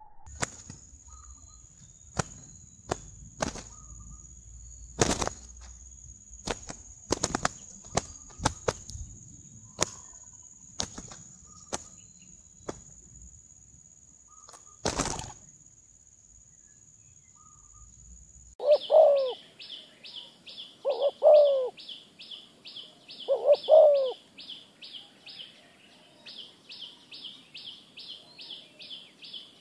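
Spotted doves fighting: sharp wing slaps and flapping over a steady high whine. Then a spotted dove cooing in short phrases every couple of seconds, over a fast, regular high chirping of about three or four pulses a second.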